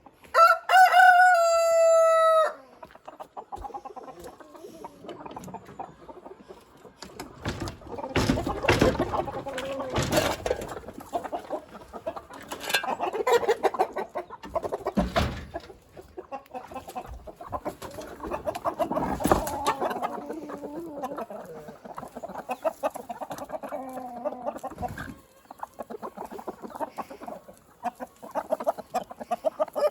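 A rooster crows once, loud and about two seconds long, at the start. Then a flock of free-range chickens clucks and calls on and off.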